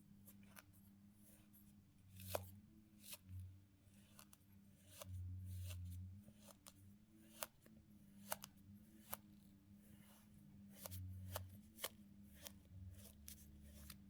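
Kinetic sand being worked: faint, crisp crackles and ticks at irregular intervals, over a low steady hum.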